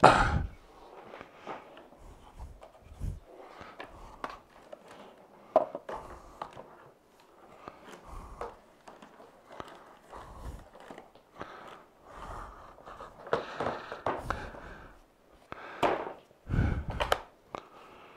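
Plastic parts of a Shop-Vac being handled and fitted together: a cartridge filter pushed onto its cage and the motor head set onto the plastic drum. Scattered knocks, clunks and rustles, louder near the end.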